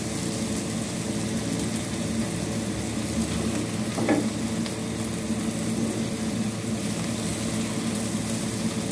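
Tempeh and chopped garlic, shallots and chillies sizzling in oil in a frying pan while a plastic spatula stirs and scrapes them, with a steady low hum underneath.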